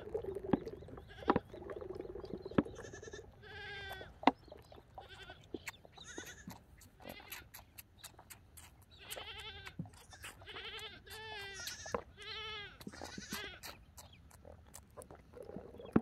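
Young alpaca suckling at a bottle nipple, with wet smacking clicks throughout. It gives about five short wavering calls, one a few seconds in and the rest bunched in the second half.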